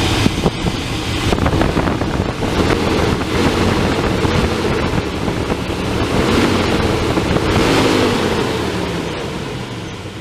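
1996 Chevy Tahoe's gasoline V8 idling with fresh spark plugs and plug wires fitted. It runs without a miss, the misfire from worn plug wires cured.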